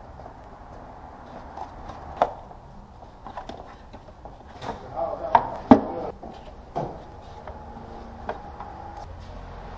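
Plastic engine cover on a BMW N46 four-cylinder engine being handled and pressed into place: a scatter of clicks and knocks, a few sharper ones near the middle.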